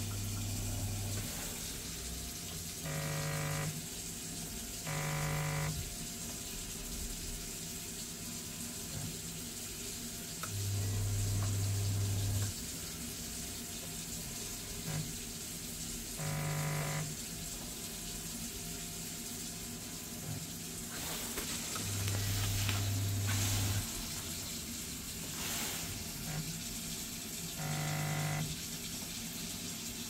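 Vaillant combi boiler cycling through its start-up without firing, which the engineer puts down to a failed circuit board: a low hum swells three times for a second or two, and four short buzzes come in between, over a steady hiss of water running from the opened tap.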